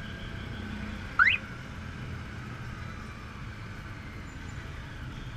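Honda Gold Wing 1800's flat-six engine and road noise as it rides in a group of motorcycles. A little over a second in, a short, sharp rising whistle cuts through, louder than anything else.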